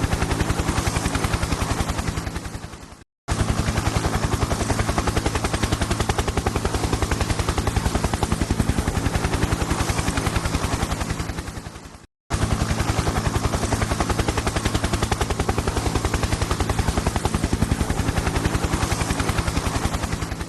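Helicopter rotor chop: a fast, steady beating of the blades over a low engine drone. The loop fades out and breaks off twice, about three seconds in and again about twelve seconds in, then starts again at full level each time, and begins fading once more near the end.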